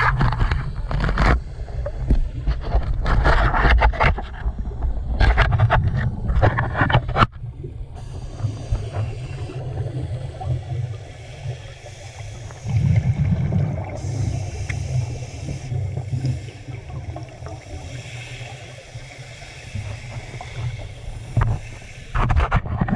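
Muffled underwater sound through a GoPro dive housing: a scuba diver's exhaled bubbles in a run of short bursts over the first seven seconds and again near the end, over a steady low rumble of water moving past the housing.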